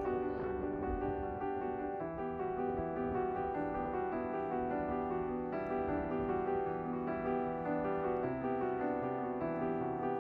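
Background piano music, slow and gentle, with notes held and changing about once a second. A faint low rumble, likely wind or surf, lies under it.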